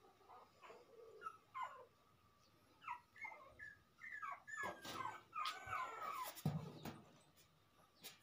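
A young puppy whimpering: a string of short, high whines that fall in pitch, with a handling bump about six and a half seconds in.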